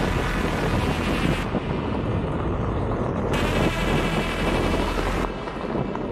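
Onewheel GT electric board rolling fast over a dirt trail, with wind buffeting the action-camera microphone. The hub motor's high whine comes and goes in stretches.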